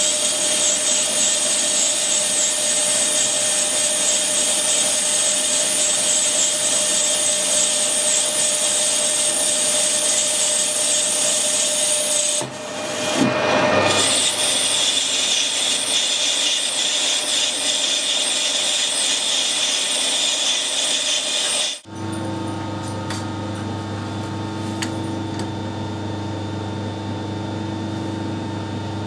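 Metal lathe turning a bar of aluminium bronze, the tool cutting with a steady high hiss. The hiss breaks off briefly about halfway through, then runs again. About three-quarters of the way through the cutting sound stops suddenly and a steady low hum is left.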